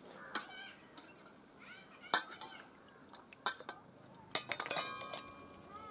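A steel spoon clinking against a steel bowl while beating egg into milk: a series of sharp clinks, the last few near the end ringing on briefly.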